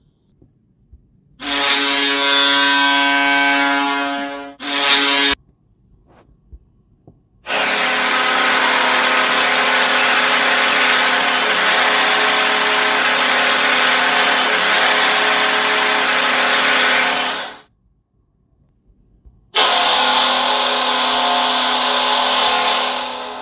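Recorded ice hockey goal horns played back from a goal horn app: a low, buzzy horn sounds for about three seconds with a short blast right after it, then a long blast of about ten seconds, then another horn starts a couple of seconds later, with silent gaps between.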